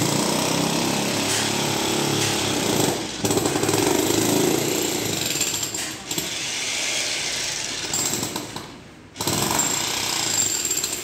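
Electric jackhammer (corded demolition breaker) hammering into the ground and concrete rubble to dig a foundation. It runs in long stretches with a few brief pauses, stopping for about half a second near the end before starting again.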